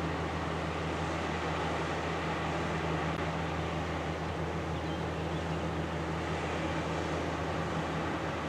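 Steady low drone of ship engines with an even hiss over it, unchanging throughout.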